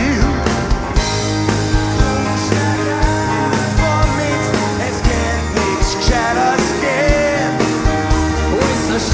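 Live band playing a rock song with sung vocals over a steady kick-drum beat of about two beats a second, with bass, guitars and a trumpet in the mix.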